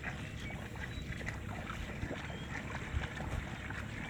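Kubota DC-70 combine harvester running, a steady low engine rumble.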